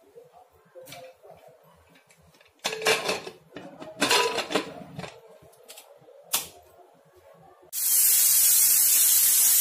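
Pressure cooker lid clattering as it is fitted and closed, with a sharp click a little later. Near the end, the cooker's whistle lets off steam in a loud, steady hiss that cuts off abruptly.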